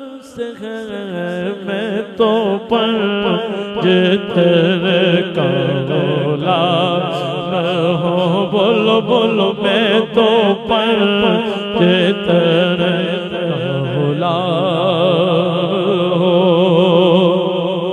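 A man singing Urdu devotional verse (naat) solo into a microphone, drawing out long, ornamented notes with a fast, wavering vibrato and no clear words.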